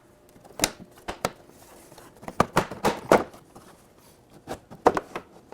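Plastic side body panel of a Can-Am Spyder RT being pulled free of its clips: a string of sharp clicks and knocks as the clips let go and the panel is handled, with a cluster of them about halfway through and a few more near the end.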